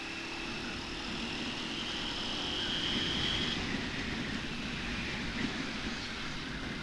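Honda TMX125 Alpha's single-cylinder four-stroke engine running while the bike is under way, with a steady rush of wind and road noise. A thin whine rises slightly over the first few seconds and fades out.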